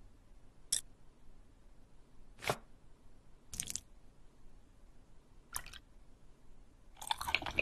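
A few soft, separate taps and clicks as chopsticks handle a LEGO brick, spaced a second or two apart, then a quick run of many small clicks near the end.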